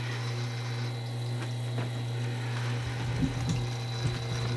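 Tormek T-3 water-cooled sharpener running with a steady motor hum. From about three seconds in, knocks and clicks join it as the chisel and its jig are handled on the machine.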